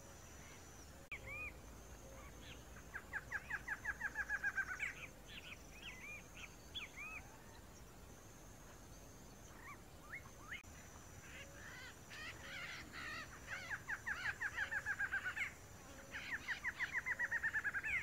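Male barred antshrike singing: three runs of quick repeated notes, each speeding up and growing louder, the last one sliding slightly down in pitch.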